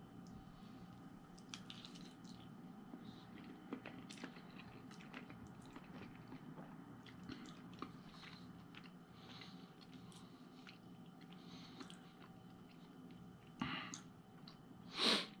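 Faint close chewing of a mouthful of spaghetti, with small wet mouth clicks and squishes over a low steady room hum. Near the end come two short, louder rushes of noise; the second is the loudest.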